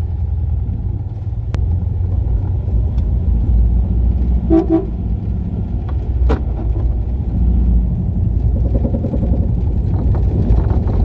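Nash Metropolitan's Austin-built four-cylinder engine and road noise heard from inside the small cabin while driving, a steady low rumble. About four and a half seconds in, a car horn gives two quick toots.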